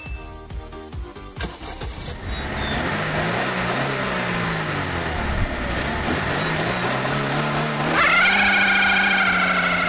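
Rapid clicking for about two seconds, then a Daewoo Lanos engine revving up and down several times. About eight seconds in a loud, high, wavering tyre squeal sets in over the engine as the tiny front wheels spin on the asphalt in a burnout.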